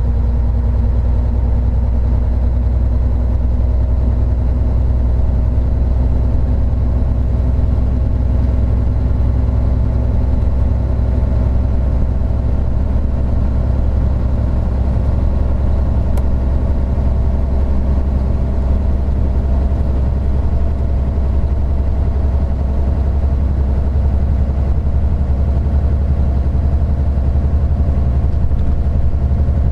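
Isuzu Gala III coach's 12PE1 V12 diesel engine running steadily, a loud low hum with layered engine tones whose pitch drifts only slightly.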